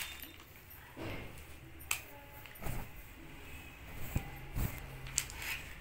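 Cloth rustling as a folded white cotton suit is unfolded and spread out by hand, with a few light taps and knocks scattered through it.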